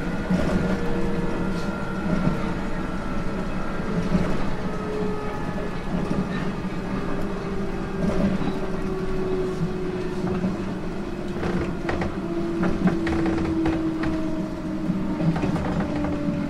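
JR East 719 series electric train running, with a steady rumble and a motor whine that glides slowly down in pitch. A few sharp clicks come in the second half.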